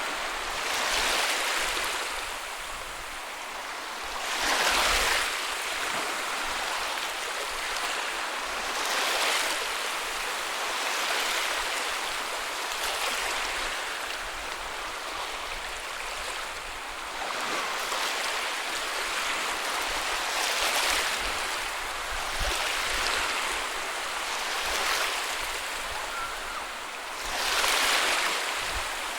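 Ocean waves breaking and washing on a beach: a steady hiss of surf with a louder surge every few seconds, the biggest about five seconds in and near the end.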